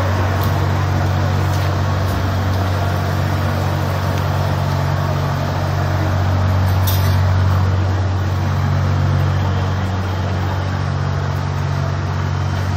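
Fire trucks' diesel engines running steadily at the scene, a loud, continuous low drone that does not change in pitch.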